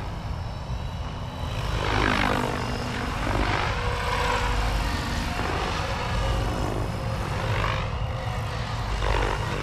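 SAB Kraken 580 electric RC helicopter flying at a low 1500 RPM head speed: a steady rotor and motor whine that sweeps up and down in pitch several times as it passes back and forth.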